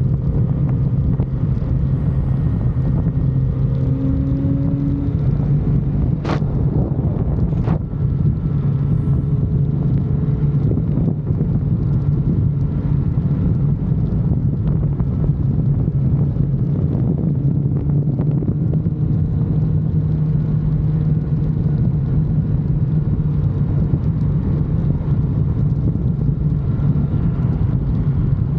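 Kawasaki Z900RS's inline-four engine through its stock exhaust, running at a steady, even pitch while the bike cruises. Two sharp clicks sound a few seconds in.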